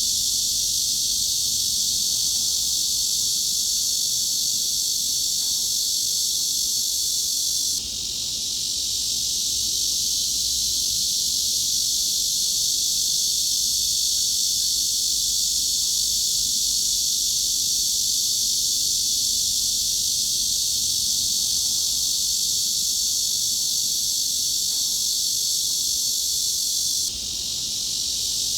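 Cicadas droning steadily, a dense high-pitched buzz centred from about 4 kHz upward. It dips briefly and swells back twice, about eight seconds in and near the end.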